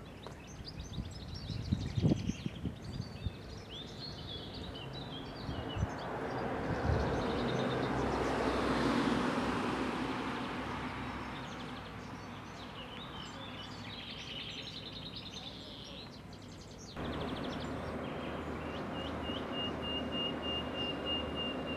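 Birds chirping over an outdoor background, with a rush of noise that swells and fades in the middle. Near the end the background turns to a steady hum with a repeated high-pitched note.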